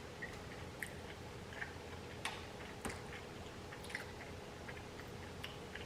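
Close-miked chewing of butter-baked shrimp, with soft wet mouth clicks and lip smacks coming at irregular moments.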